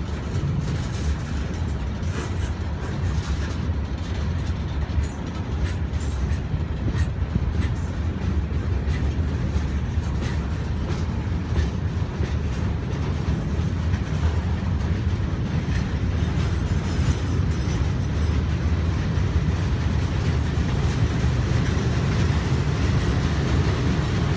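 Loaded gondola cars of a Norfolk Southern slab steel freight train rolling past: a steady deep rumble of steel wheels on the rails with scattered clicks, growing a little louder in the second half.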